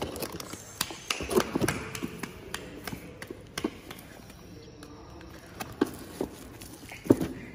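Paperback workbooks being lifted out of a cardboard box and laid down: scattered taps and knocks of books on cardboard, with some paper rustling.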